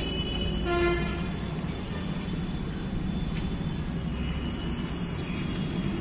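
Steady low rumble of road traffic, with one short toot of a vehicle horn about a second in.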